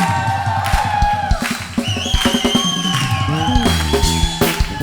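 Gospel band playing an instrumental break: drum kit, bass and a sustained lead line that slides in pitch.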